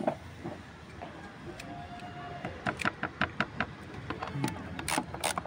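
Socket ratchet wrench clicking in quick runs from about halfway through, as bolts on the engine are undone. There is a single knock right at the start.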